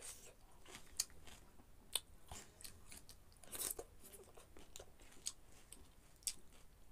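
Close-up chewing of a mouthful of spicy noodles, soft and wet, with a few sharp clicks, the clearest about one and two seconds in.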